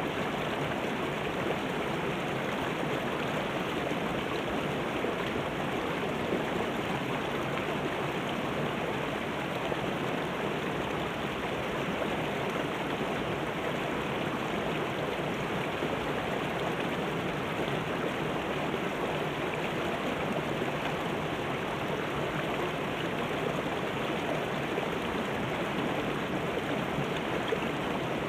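Shallow rocky mountain stream running over boulders in small cascades: a steady, even rush of water.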